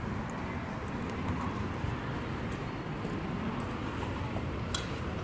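Steady low background rumble with a sharp click near the end from a glass entrance door being handled.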